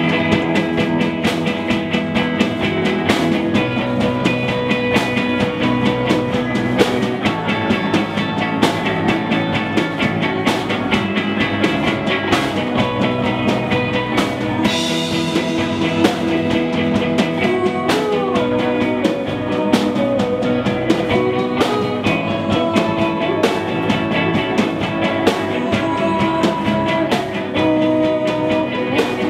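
Rock band playing a song live: electric guitars over a steady drum-kit beat.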